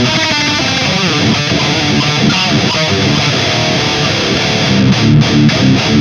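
High-gain distorted electric guitar riffing through a Mooer 005 Brown Sound micro preamp pedal, boosted by a Tube Screamer. It is driven by a solid-state power amp into a Mesa 4x12 cabinet loaded with Vintage 30 speakers and close-miked with an SM57. A run of rhythmic low chugs comes near the end, with the preamp still on its starting settings.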